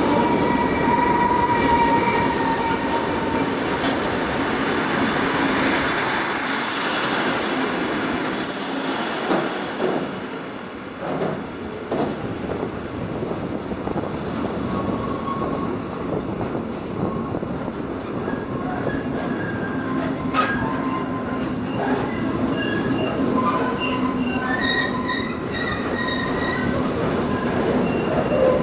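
Freight train wagons carrying containers and tank containers rolling past close by: a steady rumble of wheels on rail, with thin high wheel squeals at the start and again near the end, and a few sharp clicks over rail joints.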